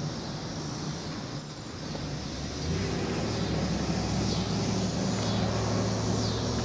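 A steady low engine hum of a motor vehicle, at an unchanging pitch, growing louder about three seconds in and then holding.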